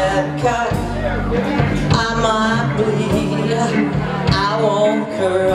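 A live band playing: a lead singer holding wavering notes over electric guitar, bass guitar, drums and keyboard.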